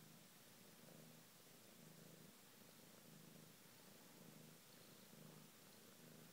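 Domestic cat purring faintly close to the microphone, a low rumble that swells and eases about once a second with its breathing.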